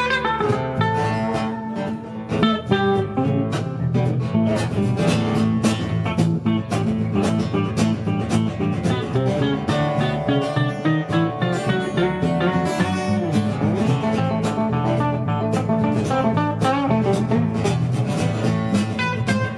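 Instrumental music from two guitars and a plucked upright double bass: quick picked guitar notes over strummed guitar and a steady low bass line.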